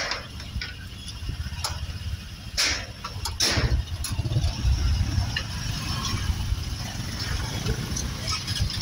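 Motorcycle engines idling close by in a steady low rumble, with a couple of brief rushing noises about two and a half and three and a half seconds in.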